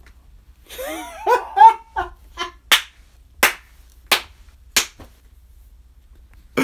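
A man's short wordless exclamation, then slow, evenly spaced hand claps, four strong ones about 0.7 s apart.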